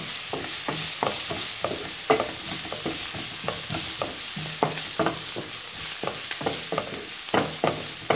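Sliced onions sizzling in oil in a frying pan over high heat, stirred with a wooden stick that scrapes and knocks against the pan a couple of times a second.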